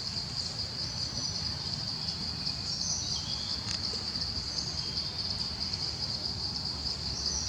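Steady, unbroken high-pitched drone of insects, with a few faint short chirps over it.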